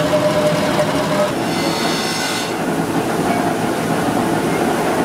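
Steady, loud din of factory machinery working metal pressure cooker bodies, with a high metallic squeal of metal on metal from about one to two and a half seconds in.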